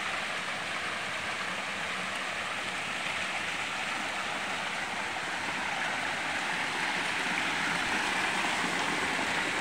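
Steady rushing noise of water, growing a little louder over the last few seconds.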